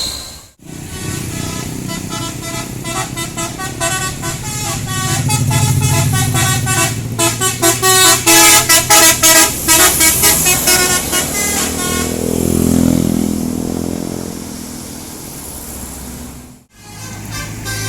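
Bus telolet horn, a multi-tone musical air horn, playing a quick tune of short notes that change every fraction of a second, loudest and most rapid about halfway through, over the bus's running engine.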